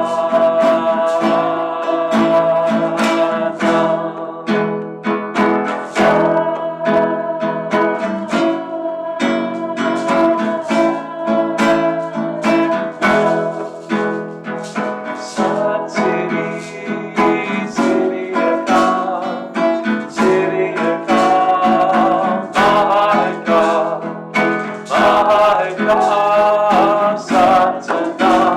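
Acoustic guitar music, played with quick plucked and strummed notes.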